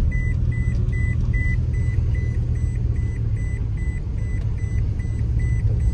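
Car engine rumbling at low speed, heard from inside the cabin, with a rapid electronic warning beep repeating about three times a second.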